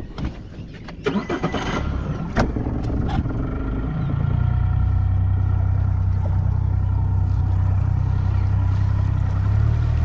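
Small boat outboard motor starting after a few knocks, then running steadily.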